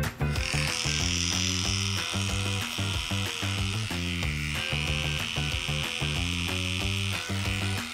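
Cordless electric dog-grooming clippers switch on just after the start and run with a steady high-pitched buzz while shaving a dog's long fur, then switch off just before the end. Background music plays underneath.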